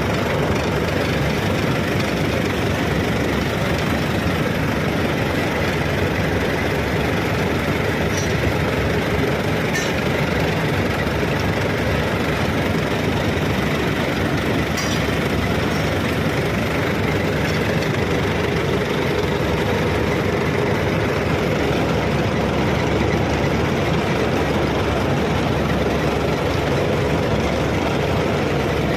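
Steady running of heavy machinery or an engine, unbroken, with a few faint clicks partway through.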